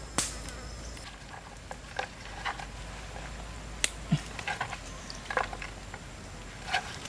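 Insects buzzing, with scattered sharp clicks and knocks.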